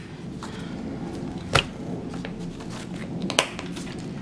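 Paper planner pages rustling as they are handled, with two sharp clicks from the ring-bound planner, about two seconds apart.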